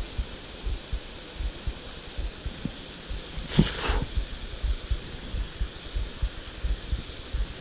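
Steady hiss of a flowing river, under irregular low thumps on the microphone. A brief rustle comes about three and a half seconds in.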